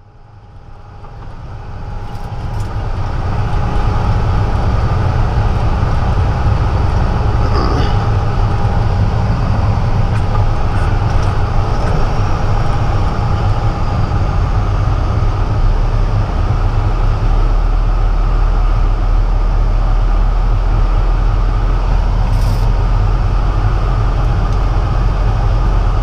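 Diesel engine and road noise inside a Peterbilt truck's cab as it drives along a dirt field road: a steady low rumble with a faint whine above it. It fades in over the first few seconds.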